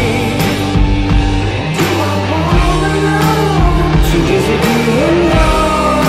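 Rock song with a sung vocal melody over a steady beat.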